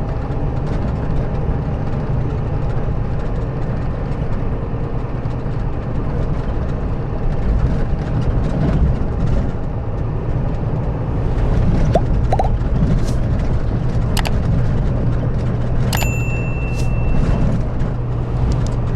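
Scania K400B coach's rear-mounted diesel engine running steadily with a low, even hum. A short high tone sounds briefly about sixteen seconds in.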